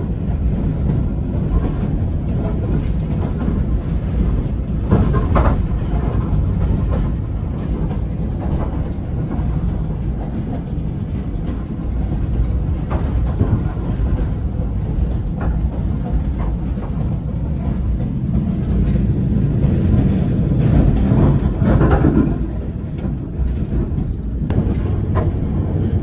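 Passenger train running along the line, heard from its rear observation car: a steady low rumble of wheels on rails with occasional sharper clacks. It swells louder a little before the end.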